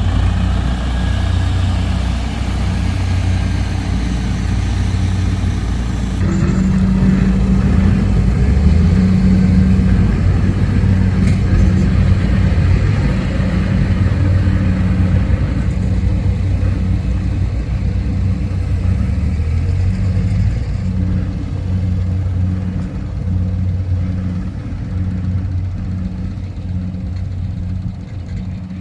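Rice combine harvester's engine running under load: a steady low drone that swells for a stretch in the middle, then pulses about once a second toward the end.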